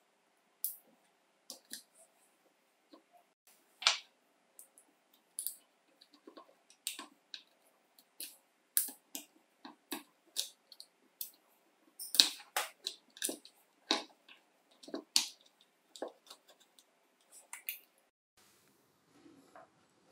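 Irregular sharp clicks and snips of hands working a jigsaw's plastic trigger switch and its wire leads with wire cutters, about one or two a second. It goes quieter to a faint rustle near the end.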